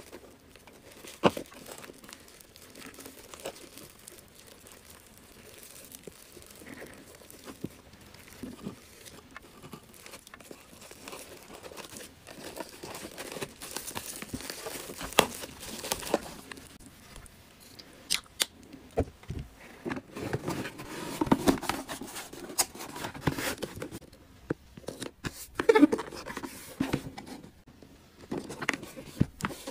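Hands packing a cardboard gift box: plastic wrapping and paper crinkling, with sharp taps, clicks and tearing. The handling gets busier and louder in the second half.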